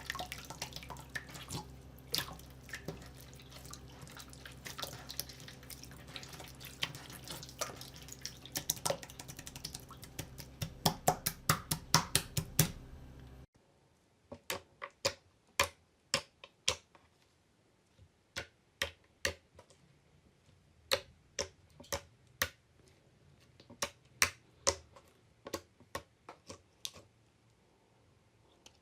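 Slime being squeezed and poked, with dense wet crackling that speeds into a quick run of loud pops. After a cut about halfway through, separate sharp clicking pops come a few a second.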